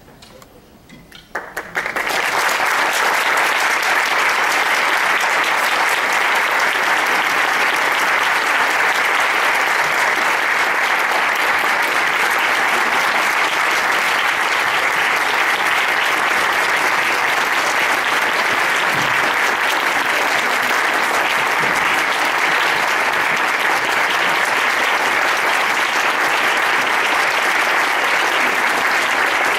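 Audience applauding steadily, starting suddenly about two seconds in.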